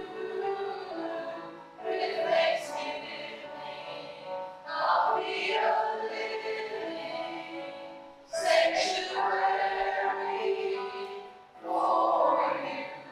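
A group of voices singing in a church service, in phrases a few seconds long, each starting strongly and then fading.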